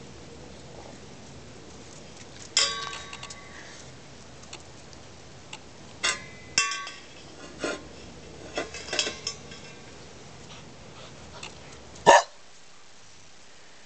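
Stainless steel dog bowl knocked and scraped on concrete as a dog paws and noses it: scattered clanks in small clusters, several ringing briefly like struck metal. One louder, sharp sound comes near the end.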